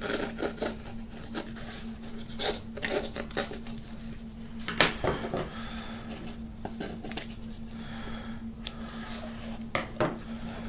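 Rustling and scraping of fabric covering on a balsa frame as it is trimmed with a hobby knife and scissors, with small clicks of the tools, sharpest a little before halfway and again near the end. A faint steady hum runs underneath.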